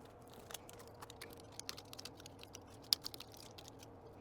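Scattered light clicks and ticks of small tools and parts being handled at a workbench, irregular and faint, with one sharper tick about three seconds in, over a faint steady hum.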